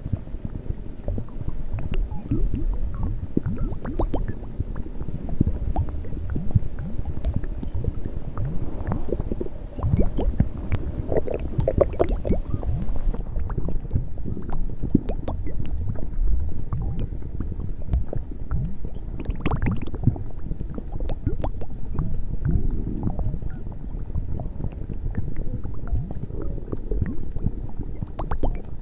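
A woman's stomach growling and gurgling without a break: a dense run of low rumbles with many short, wet gurgles and squelches.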